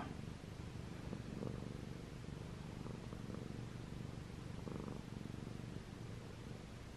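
Domestic cat purring steadily.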